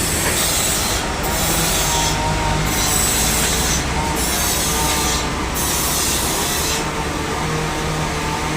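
Sawmill saw cutting through a large log: a loud, steady machine noise with a low hum beneath and a hissing, rasping top that briefly dips every second or so.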